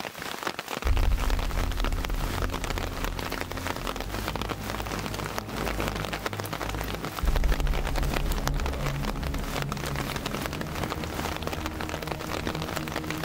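Steady rain falling, a dense patter of individual drops ticking over an even hiss, with a low rumble underneath from about a second in.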